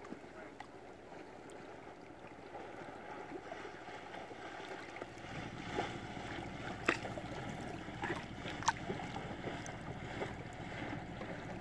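Wind buffeting the microphone over lapping water, the wind rumble growing stronger about halfway through, with a few sharp clicks.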